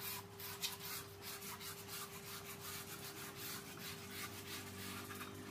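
Light scratching of a marking tool drawn in quick repeated strokes across a wooden board, marking out a straight cutting line and the face side before sawing. A faint steady hum lies underneath.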